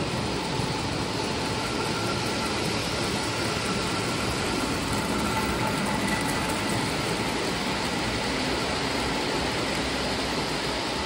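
Lionel O-gauge electric model trains running on three-rail track: a steady rumble of wheels and motors with a faint whine.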